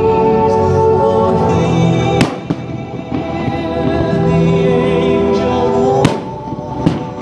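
Fireworks display with its music soundtrack playing steadily, cut by three sharp firework bangs: about two seconds in, about six seconds in, and again just under a second later.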